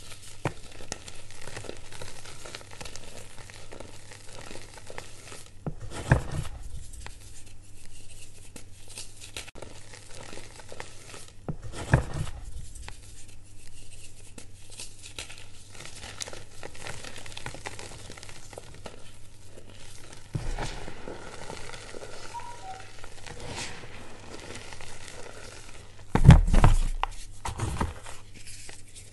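Blocks of reformed gym chalk being crushed and crumbled by hand, a crunchy, powdery crackle with chalk dust sifting down. There are a few sharp cracks along the way and a heavier thump with crunching near the end.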